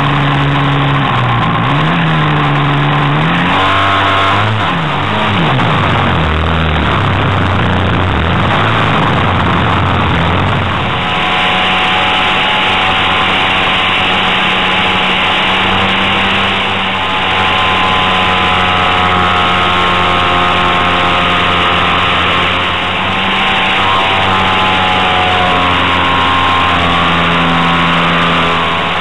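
Small air-cooled piston engine driving a propeller, revving up and down for the first ten seconds or so, then held at a steady high throttle with a slight waver for the rest, as the aircraft takes off and climbs.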